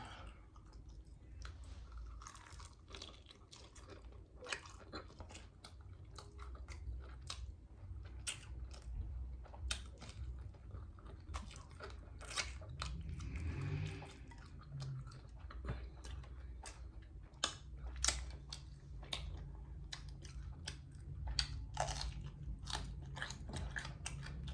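Close-miked chewing and biting of crispy flour-dredged fried chicken wings, with many sharp crunches scattered throughout.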